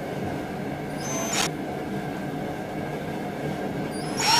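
Power drill driving screws into a clamped wooden cabinet face frame: a brief whir about a second in, then the drill starting up again near the end, over a steady low background hum.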